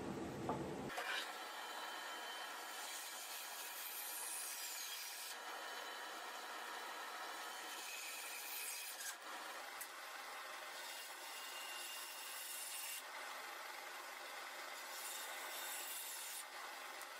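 Turning tool cutting wood on a lathe: a steady scraping hiss that changes abruptly several times.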